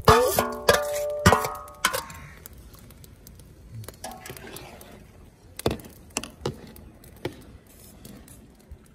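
Long steel spoon stirring rice in water inside a steel cooking pot, striking the pot with several ringing clangs in the first two seconds. Softer scattered clinks follow as the stirring goes on.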